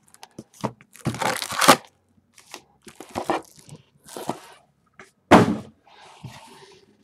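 Cardboard box and wrapped trading-card packs being handled, giving crinkling and crackling in a string of short bursts, the loudest about five seconds in.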